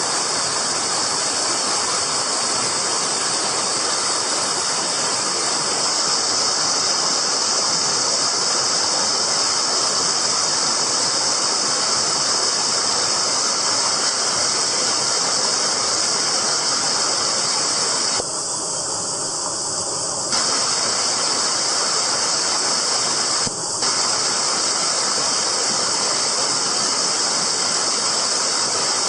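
Mountain stream rushing steadily, a loud even hiss of water. It dips suddenly for about two seconds roughly two-thirds of the way through, and again very briefly soon after.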